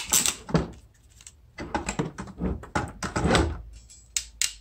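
Hand tools at work on a small electrical wire: rattling, scraping clicks of a wire stripper taking the insulation off, then two sharp clicks near the end from a ratcheting crimper being opened to take a butt connector.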